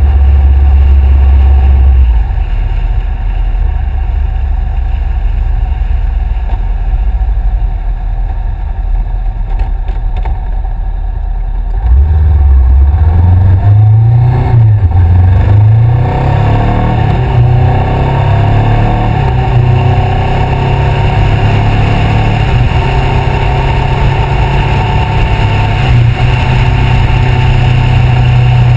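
2013 Honda CBR500R's parallel-twin engine through a Two Brothers aftermarket exhaust. It runs low and steady, quietens after about two seconds, then about twelve seconds in accelerates, rising in pitch through a couple of upshifts, and settles into a steady cruise.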